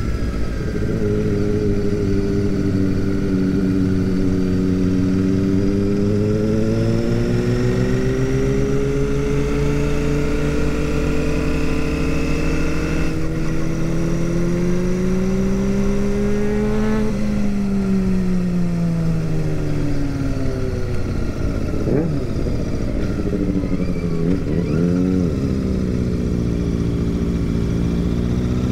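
Royal Enfield Super Meteor 650's parallel-twin engine running under way, its note rising and falling gently with the throttle. It drops off about two-thirds of the way through, surges briefly, and climbs again near the end.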